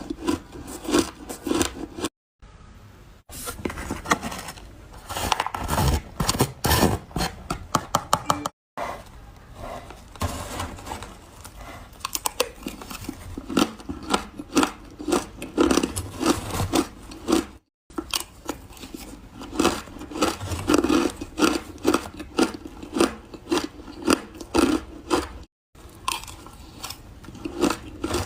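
Ice being bitten and chewed close to the microphone: rapid, irregular crisp crunches, in several short clips joined by abrupt brief silences.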